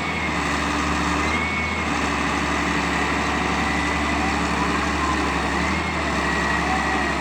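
Excavator's diesel engine running steadily under work, with a thin high whine that wavers slightly in pitch.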